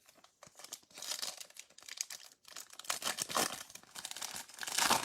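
Foil baseball card pack wrapper being torn open and crinkled by hand, with an irregular run of crackles that grows loudest near the end.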